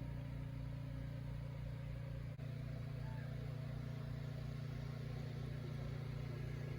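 An engine running steadily at a constant speed, a low even hum with a fast pulse underneath.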